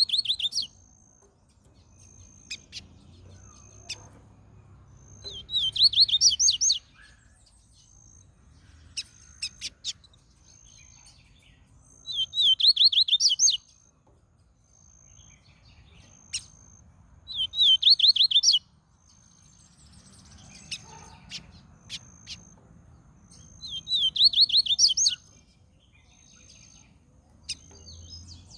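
Double-collared seedeater (coleiro) singing: a fast phrase of rapid high notes about a second and a half long, repeated about every six seconds, with soft single chips in between.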